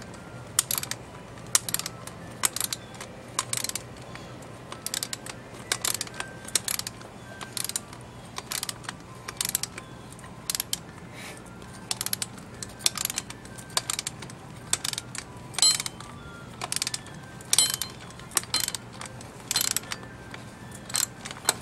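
Hand ratchet wrench clicking over and over, roughly twice a second, as it is swung back and forth to back off a nut on a reel mower's steel handle brace. The nut is coming off easily.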